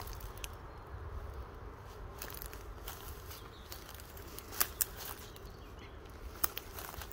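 Footsteps through dry leaf litter and twigs, with scattered sharp snaps and crackles, the loudest a quick pair about two-thirds of the way in, over a steady low rumble.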